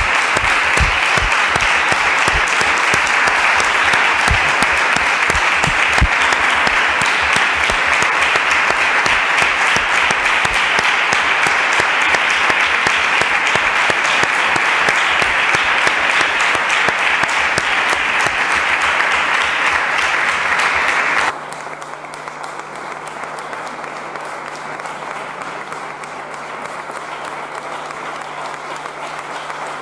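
A room full of people applauding steadily and at length. About two-thirds of the way through, the level drops abruptly and the clapping carries on more quietly.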